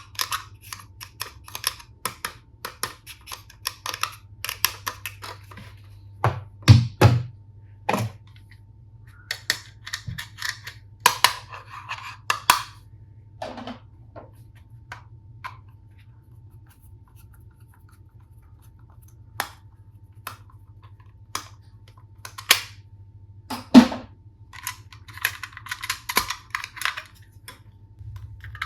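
Plastic toy tool pieces and packaging being handled: scattered sharp clicks and taps, a few louder knocks, and bursts of crinkly rustling, with a quieter stretch in the middle where only occasional clicks sound.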